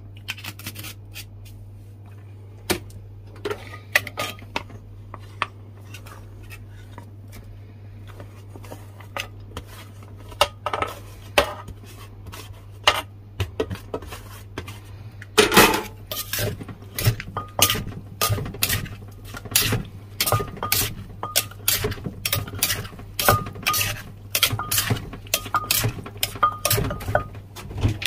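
Wooden pestle knocking in a terracotta mortar while a metal spoon scrapes and clinks against its sides, pounding Thai papaya salad. Sparse knocks and clinks at first, a loud clatter about halfway in as shredded green papaya is tipped in from a metal tray, then steady pounding about twice a second.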